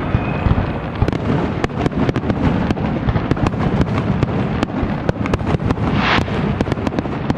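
Aerial fireworks display: a rapid, continuous run of bangs and crackles as shells burst overhead, with a hissing swell about six seconds in.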